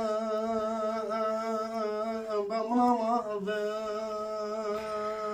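A man singing a Turkish uzun hava, unaccompanied, holding one long note with a slight waver. About three seconds in he turns briefly up to a higher ornament, then settles back onto the held note.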